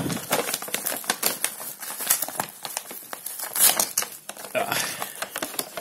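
Brown kraft-paper mailing envelope being handled and pulled open by hand: a dense, continuous run of paper crackles and rustles.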